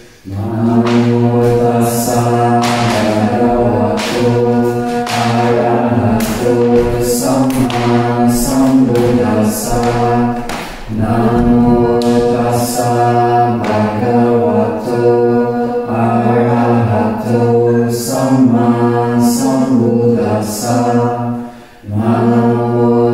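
A group of voices chanting together on long held pitches in a Buddhist devotional chant, breaking briefly for breath about eleven seconds in and again near the end.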